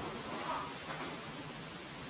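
Steady hiss of a recording in a quiet room with no distinct sound: the microphone's noise floor and room tone.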